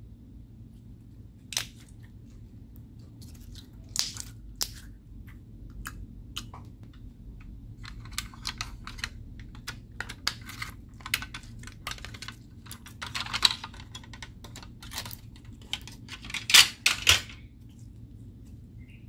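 Slime being handled and worked by hand, giving scattered sharp sticky clicks and crackles. A denser run of crackling comes about two-thirds of the way in, and two louder pops come near the end.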